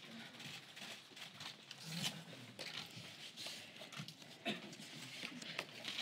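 Faint room noise of people gathering at a podium: shuffling and rustling, a few scattered clicks and indistinct low murmuring.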